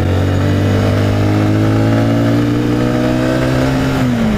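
Honda CBR125's single-cylinder four-stroke engine pulling under throttle while riding, its pitch rising steadily, then falling away near the end.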